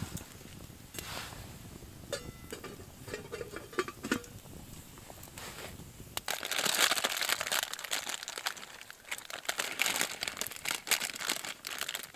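Crinkling of a plastic instant-noodle packet being handled, with light clicks and taps at first. About six seconds in it turns to a louder, continuous crinkling.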